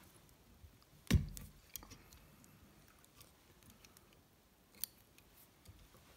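Small fly-tying scissors snipping stray fibres at the head of a dry fly: a few sharp snips, the loudest about a second in and another a little before five seconds in.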